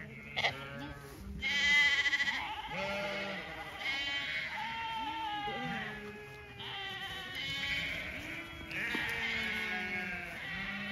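Zwartbles sheep and lambs bleating, many calls overlapping and following one another, the loudest about two seconds in.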